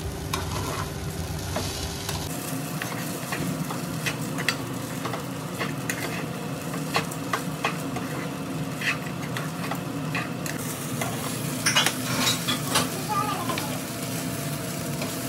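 Poha (flattened rice) being stirred in a nonstick frying pan with a perforated steel spatula over a steady low sizzle. The spatula scrapes and knocks against the pan now and then, with a run of sharper knocks about three-quarters of the way through.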